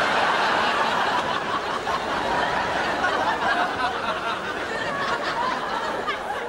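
Audience laughter that swells up suddenly and carries on.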